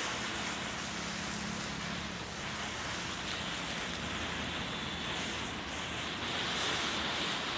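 Spiral rows of matchsticks burning on a steel plate: a steady hiss of flames as the fire spreads along the lines of match heads.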